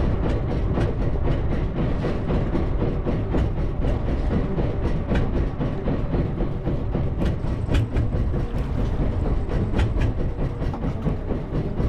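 Jigging Master fishing reel being cranked, a steady run of rapid clicks, over a continuous low rumble.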